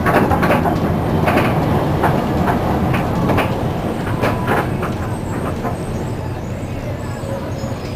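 Inside a moving Hyundai Super Aero City city bus: a steady low engine and road rumble with frequent short clicks and rattles, easing slightly toward the end.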